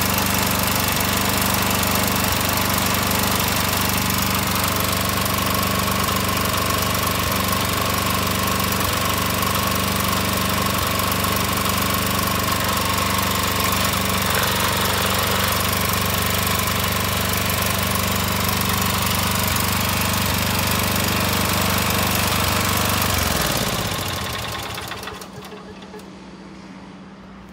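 Robin 6-horsepower single-cylinder engine on a walk-behind tiller running steadily at a fixed speed. About 23 seconds in it is shut off: the pitch falls as it runs down and stops.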